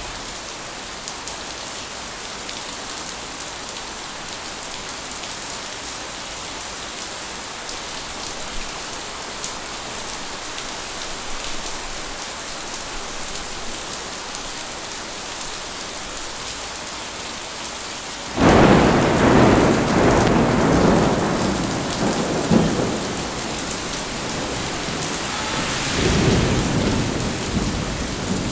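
Steady summer rain falling, then about two-thirds of the way in a sudden loud thunderclap that rumbles on for several seconds, with a second swell of rumbling near the end.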